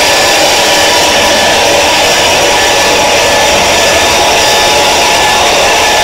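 Loud, heavily distorted mock emergency-alert alarm: a steady wall of harsh noise with several faint held tones underneath, unchanging throughout.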